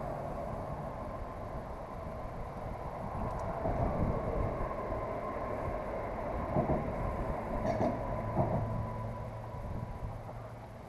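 Traffic crossing the highway bridge overhead: a steady low rumble with tire hum, and a few light knocks around the middle.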